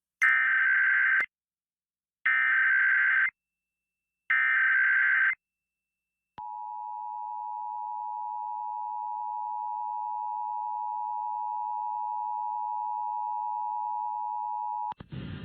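Emergency Alert System test tones: three one-second bursts of the digital SAME header code about a second apart, then the EAS attention signal, a steady two-tone alert (853 and 960 Hz) held for about eight and a half seconds, which cuts off near the end as the spoken test message begins.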